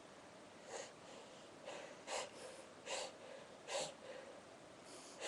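A person with a sneezing fit: a run of about five short, sharp nasal bursts, weak at first and then stronger, roughly one a second.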